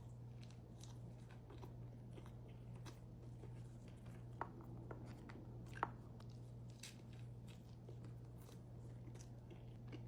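A person chewing food close to the microphone: faint, irregular mouth clicks and crunches, with two sharper clicks about four and a half and six seconds in, over a steady low hum.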